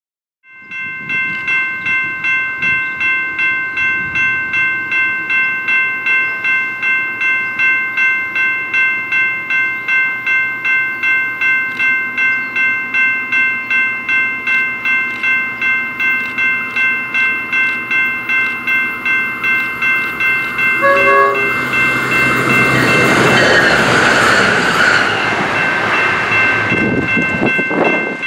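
Grade-crossing warning bell ringing steadily at about two to three strikes a second. Near the end a SMART Nippon Sharyo diesel multiple unit commuter train sounds a short horn note and rushes past at speed, a loud wash of wheel and engine noise over the bell.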